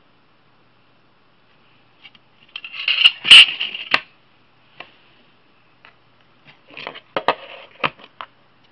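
Scraping and sharp clicks of a fire-damaged Seagate Momentus laptop hard drive's charred metal casing being handled on a wooden table as its cover is taken off, in two bursts, the first and louder about three seconds in.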